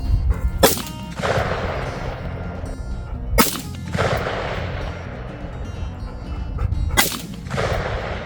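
AR-15 rifle fired three times, about three seconds apart. Each sharp report is followed by about a second of echo rolling away.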